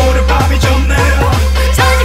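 Instrumental break of an upbeat electronic hip-hop dance track, with a heavy, steady bass and a driving beat of about four strokes a second, and no singing.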